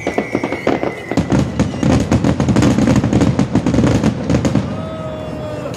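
Closing barrage of a starmine fireworks display: dense, rapid crackling of crackle stars with scattered bangs, thinning out about five seconds in. A falling whistle fades away during the first second.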